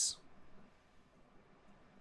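Near silence: faint room tone, with the last hiss of a spoken word fading out at the very start.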